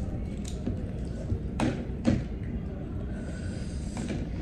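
A metal spoon scraping and tapping inside an opened balut eggshell, with two sharp taps about half a second apart near the middle, over a low steady background hum.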